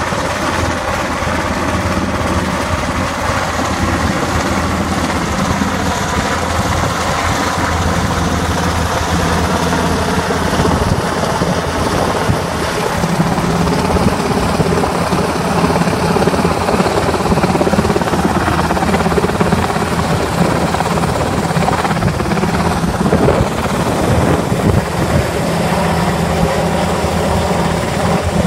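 HM Coastguard Sikorsky S-92 search-and-rescue helicopter flying low overhead: steady turbine and rotor noise with a low hum, getting a little louder as it comes directly overhead.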